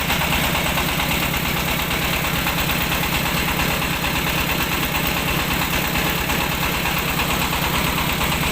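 Engine of a mobile rice milling machine running steadily at an even speed, with a rapid, regular firing beat.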